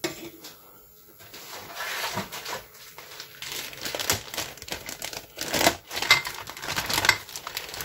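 Thin clear plastic bag crinkling and crackling as a plastic model-kit parts frame inside it is handled. It starts about a second in and is loudest in the second half.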